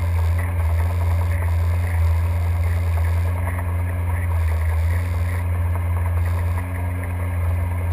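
Steady low hum of a boat's engine heard underwater through a waterproof camera housing, with a muffled wash of water noise over it.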